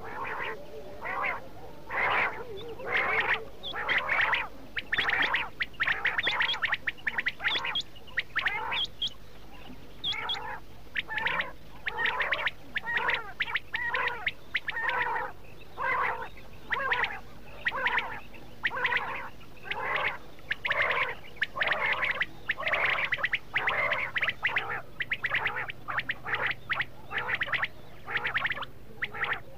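Quail calling in a continuous stream of short, repeated notes, several a second, grouped in quick clusters. This is a recorded lure call of the kind played to draw quail in for hunting.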